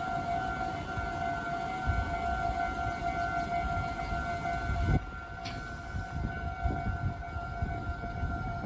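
Japanese railway level crossing's electronic warning bell ringing steadily, the signal that a train is approaching, over a low rumble.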